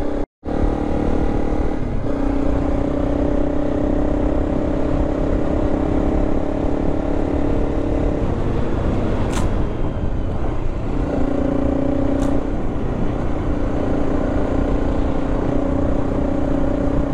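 Honda CRF300 Rally's single-cylinder engine running at a steady cruise on a sandy dirt track, over a rough rumble of wind and tyres. The sound cuts out for a moment just after the start. Past the middle the engine note fades for a couple of seconds, then settles back to the same steady pitch, with two sharp ticks in between.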